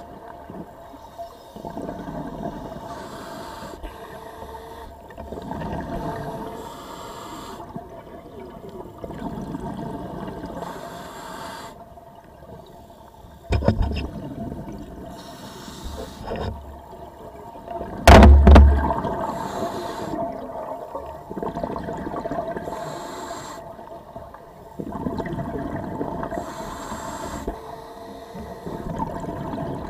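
Scuba diver breathing through a regulator underwater: hissing inhalations alternating with gurgling rushes of exhaled bubbles every few seconds. Two louder, rumbling bubble bursts come about halfway through and again a few seconds later.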